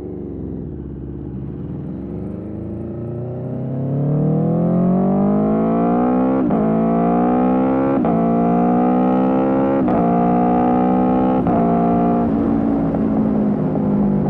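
2021 Aprilia Tuono V4's 1077 cc V4 engine through an Austin Racing GP1R exhaust, pulling hard under acceleration with the pitch climbing. It upshifts four times, with a brief break and dip in pitch at each shift. Near the end it eases off into a steadier, lower note.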